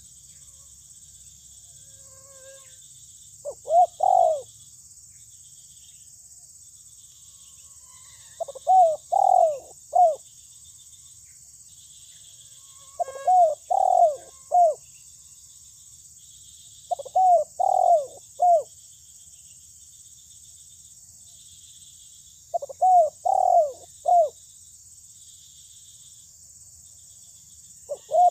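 Spotted dove cooing: six phrases of two to four arching coos, repeated about every four to five seconds.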